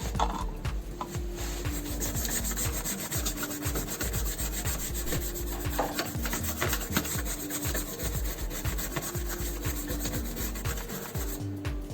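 A brush scrubbing a circuit board in quick, continuous strokes, cleaning leftover solder from the RAM slot's holes. Background music plays underneath.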